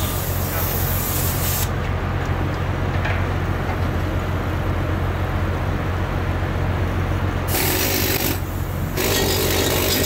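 Steady low hum of a ship's running machinery, with a hiss over it that drops away for several seconds in the middle.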